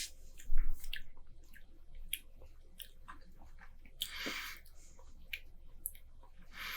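Close-up mouth noises of someone tasting beer: small wet clicks and lip smacks, with a short breath out about four seconds in.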